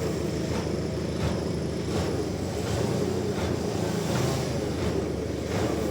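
Sawmill machinery running with a steady low drone.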